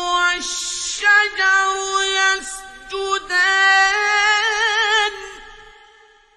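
A male reciter chanting the Quran in a high, melodic tajweed style: long held notes that end in a wavering ornament, then break off about five seconds in and die away in reverberation.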